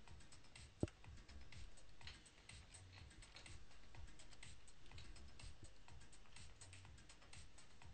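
Many small irregular clicks of a VMX VJ MIDI controller's buttons being pressed, with one sharper, louder click about a second in.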